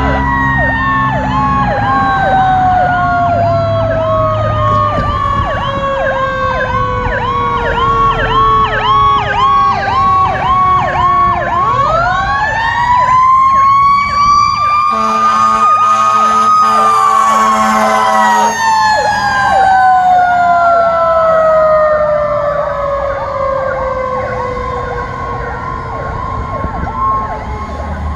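Fire truck's Federal Q2B mechanical siren winding down in a long falling wail, spun up again about twelve seconds in, then coasting down once more, layered with a fast-yelping electronic siren. A horn blast sounds for a few seconds in the middle.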